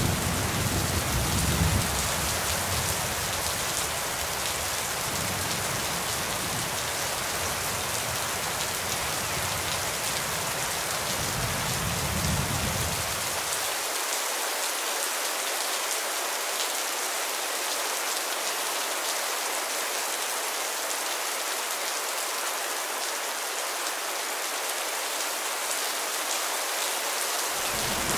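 Heavy rain falling steadily on tree leaves, an even hiss. A low rumble dies away in the first couple of seconds.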